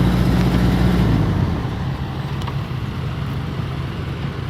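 Old Kobelco excavator's diesel engine running steadily, then dropping to a lower, quieter idle about a second and a half in.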